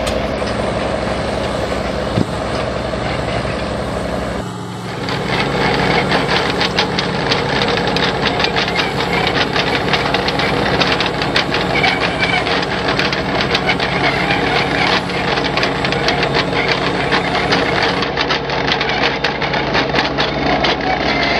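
Engines of tracked drainage-tile plows laying corrugated plastic drain pipe, running steadily at first, then, after an abrupt change about four and a half seconds in, running with a dense rattling clatter. The sound shifts abruptly again near the end.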